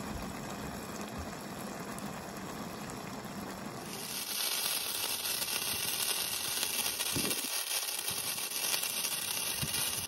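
Sukiyaki simmering in its pot with a soft bubbling hiss. From about four seconds in this gives way to several hand-held sparklers burning with a louder, steady fizzing hiss that stops suddenly at the end.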